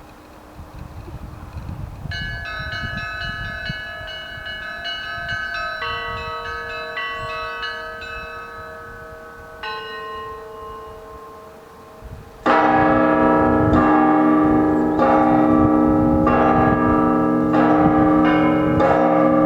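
Russian Orthodox monastery bells ringing a zvon: from about two seconds in, the smaller, higher bells chime in a quick repeated pattern, then about twelve seconds in the larger bells join and the full peal becomes much louder.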